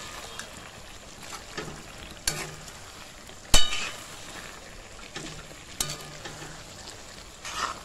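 Mutton curry sizzling in a black iron karahi while a spatula stirs and scrapes through it. A few sharp knocks of the spatula against the pan sound, the loudest about three and a half seconds in with a short metallic ring.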